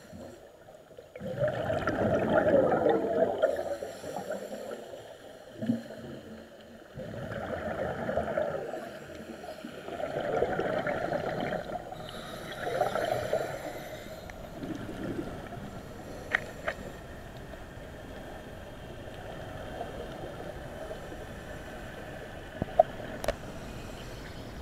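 Scuba diver's exhaled bubbles gurgling from the regulator underwater, in several long surges in the first half, then a quieter steady hiss. A few sharp clicks near the end.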